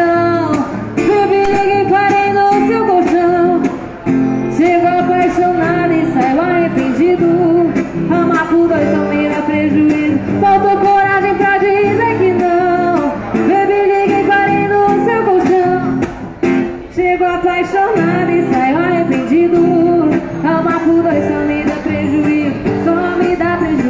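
Live acoustic sertanejo song: a woman singing into a microphone over an acoustic guitar accompaniment.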